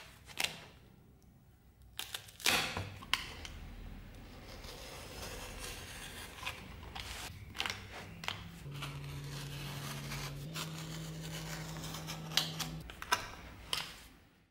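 Snap-off utility knife blade drawn through leather on a hard board: scratchy cutting strokes with sharp clicks and knocks scattered through. A low steady hum joins in the background for a few seconds in the second half.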